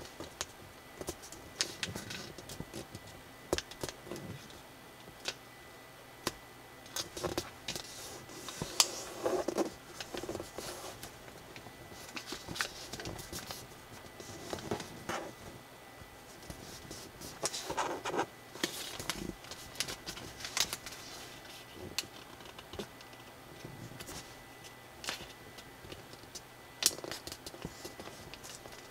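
Square colour paper rustling and crinkling as hands fold it and press the creases flat, in irregular crisp crackles and small clicks.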